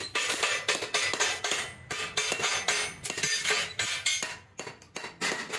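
Large hand shears cutting thin sheet metal: a run of sharp metallic snips and clinks, several a second, with loose scrap pieces rattling, and a short pause about four and a half seconds in.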